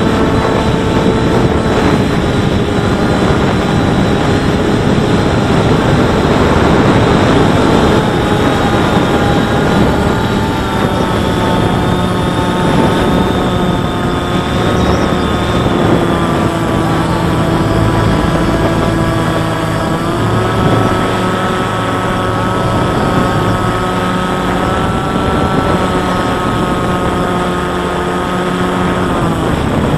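Electric motor and propeller of a Volantex Ranger 757-3 RC plane (3715 brushless outrunner with a 1060 prop) whining steadily on a landing approach, with wind noise over it. The pitch drops about ten seconds in as the throttle comes back, rises again about twenty seconds in, and falls once more near the end.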